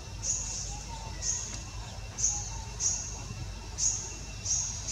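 Bird chirping: a short high call repeated about twice a second, over a low rumble.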